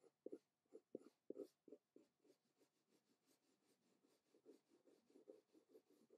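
Faint pencil strokes on drawing paper: short, quick shading strokes about four a second, laid down in cross-contour hatching. The strokes are firmer for the first two seconds, then lighter.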